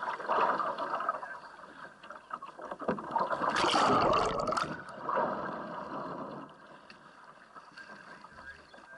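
Splashing and rushing water as a polo boat capsizes and is hand-rolled back upright, the boat-mounted camera going under the surface. The loudest rush of water comes about four seconds in as it goes under and comes back up, with more splashing after, then it quietens.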